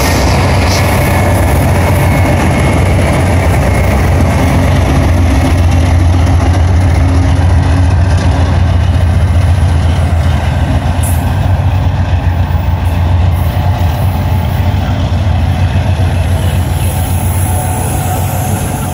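A lashup of diesel-electric freight locomotives (GE C44-9W, EMD SD40N, GE ES44AH and ES44AC units) passing one after another at close range, their engines making a deep, steady rumble.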